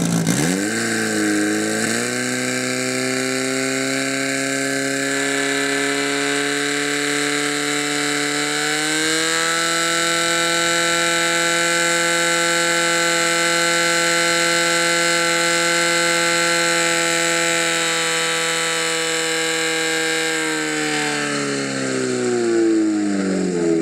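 Portable firesport pump engine running hard while it drives water through the attack hoses. Its pitch climbs over the first couple of seconds and steps up again about nine seconds in, then holds steady. Near the end it winds down.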